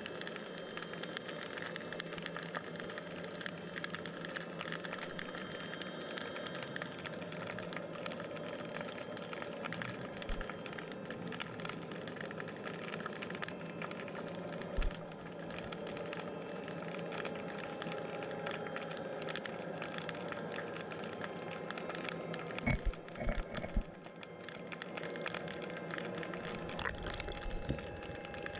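Underwater ambience heard through a submerged camera: a steady hum with several held tones and a constant fine crackle of small clicks. A single dull knock comes about fifteen seconds in, and a short cluster of knocks comes a few seconds before the end.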